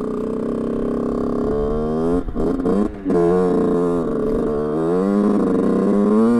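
Rieju two-stroke moped engine revving up from low revs, with two brief cut-outs about two and three seconds in. It runs poorly at low revs, which the rider suspects is a carburettor setting such as the mixture screw or pilot jet.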